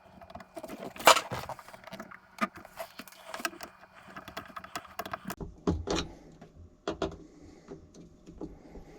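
Scattered clicks, knocks and scrapes of hand work on plastic parts in the bottom of a dishwasher tub, trying to get a jammed drain part off, with the sharpest knock about a second in.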